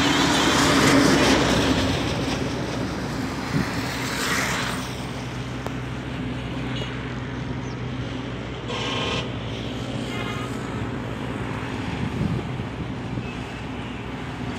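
Bedford truck passing close by, its engine and tyres loudest about a second in, then fading into steady highway traffic noise. A brief pitched sound about nine seconds in.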